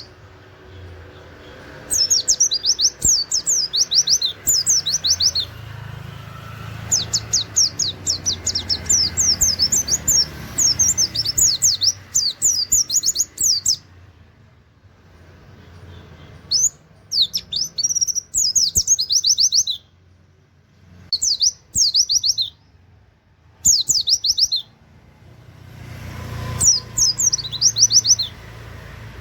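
White-eye (pleci) singing in fast 'nembak' rapid-fire runs of high, quick down-slurred notes, mixed with 'wit wit' calls and canary-like phrases. The song comes in several bursts separated by short pauses.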